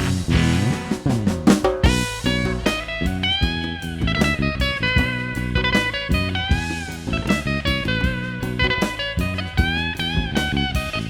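Live band playing an instrumental break: a lead line of notes that bend up and down over guitar, bass and drums.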